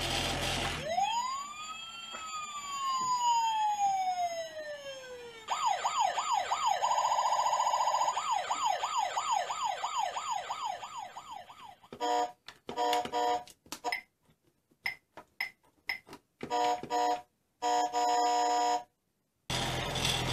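Electronic sound effects from a battery-powered toy driving-game dashboard: a tone that rises and then slowly falls, followed by a fast up-and-down warbling siren, then a stretch of short, choppy electronic tones that cut in and out.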